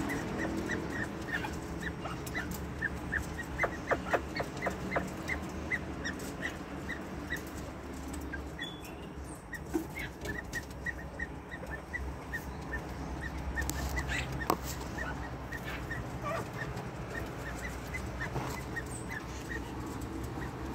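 Caged quail giving a long run of short, high peeps, about two or three a second, with a cluster of sharp taps about four seconds in.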